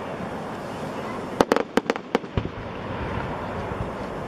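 Aerial fireworks going off: a rapid run of five or six sharp cracks about a second and a half in, over steady outdoor background noise.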